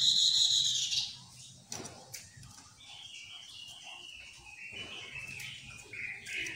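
Chestnut-capped laughingthrush (Poksay Mandarin) calling: a loud, harsh call about a second long at the start, then a quieter run of chattering notes.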